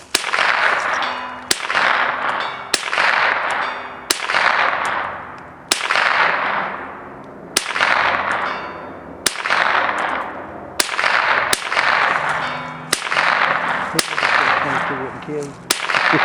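Handgun shots fired one after another, about a dozen at uneven gaps of one to two seconds, each sharp crack followed by a long echoing decay.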